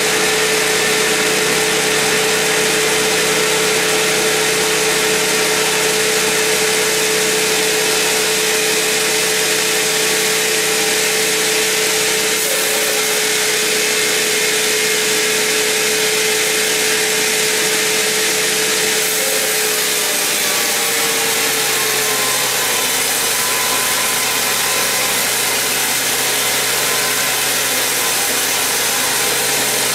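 Sawmill band saw cutting lengthwise through a huge mahogany log: a loud, steady rush of sawing with a steady hum. About twenty seconds in, the hum slides down in pitch and gives way to a different one.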